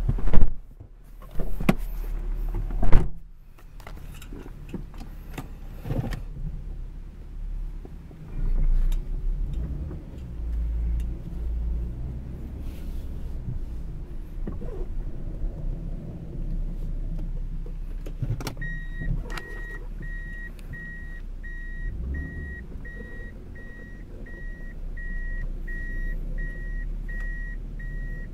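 Inside a 1991 Toyota Soarer's cabin: two loud thumps in the first few seconds over a low steady rumble. Then, from about two-thirds of the way through, the car's electronic warning chime beeps in a steady, evenly spaced series.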